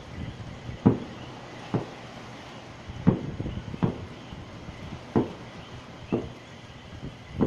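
Distant fireworks going off: a string of dull booms at irregular intervals, about seven in the span, each with a short echoing tail.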